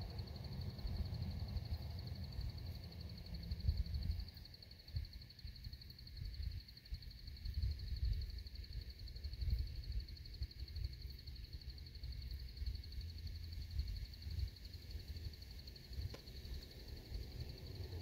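A steady, high-pitched insect trill over a low, gusty rumble of wind on the microphone.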